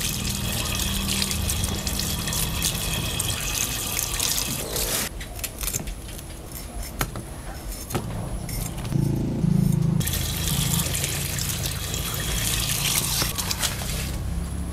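Running water splashing onto aloe vera leaves as they are rinsed over a wicker basket. In the middle a few sharp knife cuts through the thick leaves break the splashing, and the water noise then returns.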